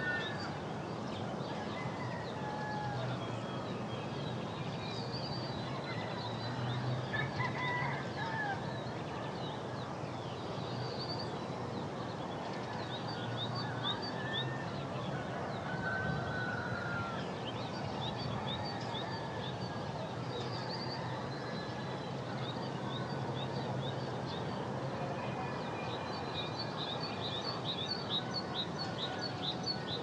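Forest ambience: several birds chirping and whistling over a steady background hiss, with a quick run of high chirps near the end.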